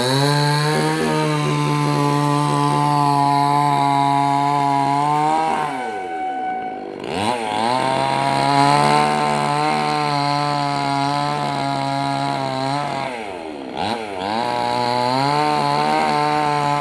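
Chainsaw engine held at high revs while cutting into a coconut tree trunk. The revs drop and pick back up twice.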